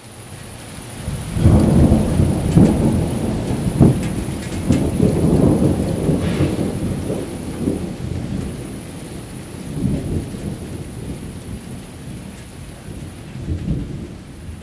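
Rolling thunder that swells about a second and a half in, rumbles with several peaks and slowly fades, over a steady hiss of rain.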